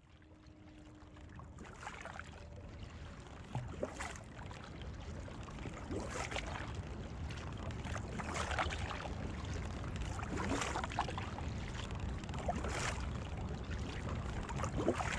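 Double-bladed kayak paddle dipping into calm water on alternate sides, a splash and dripping with each stroke about every two seconds.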